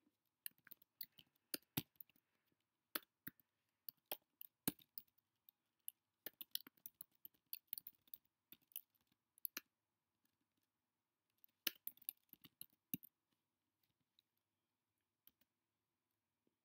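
Computer keyboard being typed on: irregular runs of light key clicks, with a pause of about a second and a half before a last quick flurry, then only a few scattered taps near the end.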